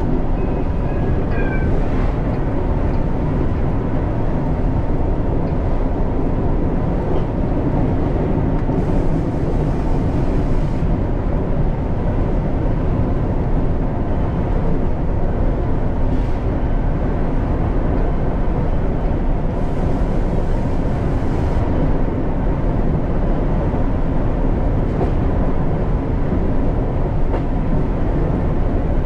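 A train running steadily on the line, a continuous loud rumble with a faint steady whine. A brief faint squeal comes about a second in.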